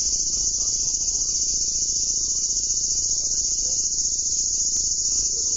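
Dense chorus of insects shrilling steadily at a high pitch, without a break.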